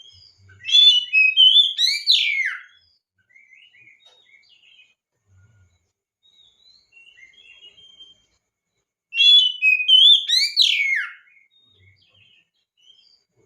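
A male Oriental magpie-robin (kacer) singing: two loud phrases of rich whistled notes, each ending in steep sweeping notes, one about a second in and one about nine seconds in, with soft scattered twitters between them.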